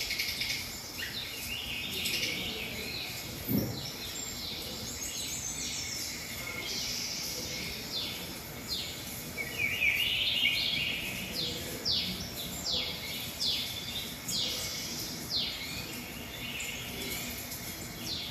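Songbirds chirping over a steady background hiss, heard from a backyard bird-feeder video playing on a television: many quick falling chirps, thickest in the second half. A single short low thump about three and a half seconds in.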